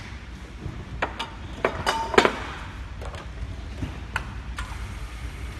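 Scattered sharp clicks and metallic knocks as a labelled aluminium aerosol can is handled at a manual labelling machine. The loudest comes as a quick cluster about two seconds in, with a brief metallic ring.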